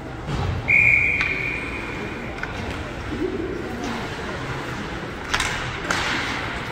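Ice hockey referee's whistle: one long, steady, high blast about a second in, fading away. A few sharp clacks of sticks and puck follow near the end as play starts again.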